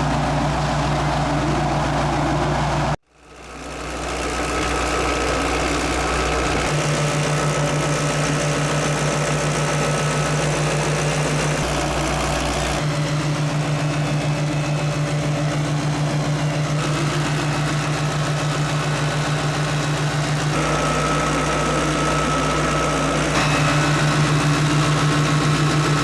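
Farm machinery engine running steadily with an even hum, cutting out briefly about three seconds in, then resuming.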